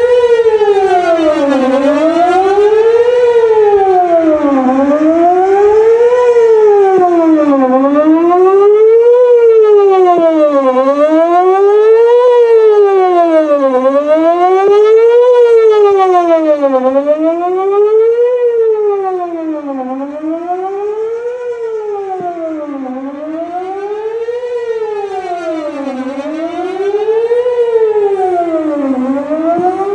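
Electronic outdoor warning siren sounding a fast wail during a test, its pitch rising and falling smoothly about every three seconds. It grows fainter for several seconds past the middle, then louder again.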